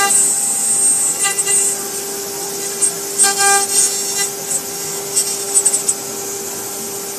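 CNC router spindle running with a steady high whine while its bit cuts through a sheet, the hissing cutting noise swelling in short bursts a few times as the cutter moves along the letter outlines.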